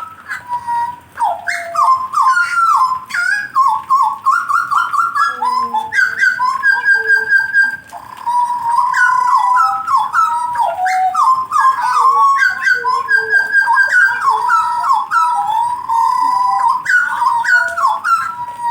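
Songbird singing a long, loud, varied song of clear whistled phrases, repeated notes and trills, with a brief pause about eight seconds in.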